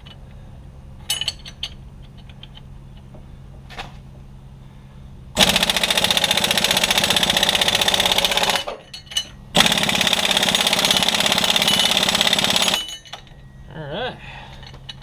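Impact wrench hammering on a seized bolt in two bursts of about three seconds each, a short pause between them, working to break it loose.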